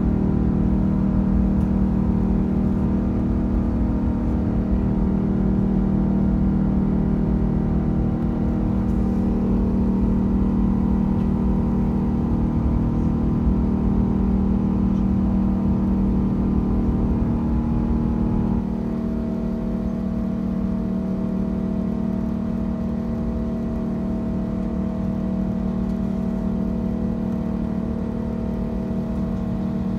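Cabin noise of an Airbus A380's Engine Alliance GP7200 turbofans heard from an upper-deck window seat: a loud, steady engine drone with a low hum. About 18 seconds in it drops a little in loudness and its tones shift.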